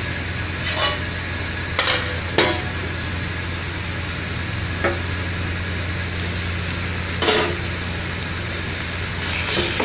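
Onion-tomato masala sizzling in a kadhai: a steady frying hiss with a low hum underneath. A few short clinks of the glass lid and pan sound through it, one about seven seconds in, around when the lid comes off.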